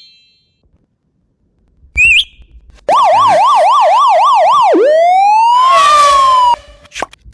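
Police siren sound effect: a short chirp, then a fast yelp sweeping up and down about three times a second, switching to a slow rising wail that cuts off suddenly.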